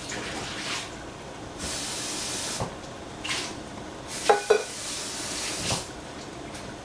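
Steam hissing out from under the lid of a covered stainless saucepan simmering on a gas burner, in two spells of about a second or more each. During the second spell, about four seconds in, comes a brief metallic ringing clink.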